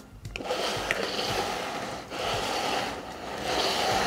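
Plastic cups being slid and shuffled across a wooden tabletop, a scraping noise that comes in several passes of about a second each.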